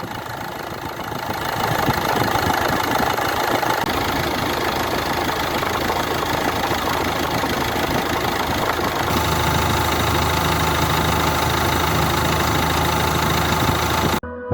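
Ford Ranger's 3.0 NGD (PowerStroke) diesel engine running at idle, steady, with abrupt changes in the sound about four and nine seconds in.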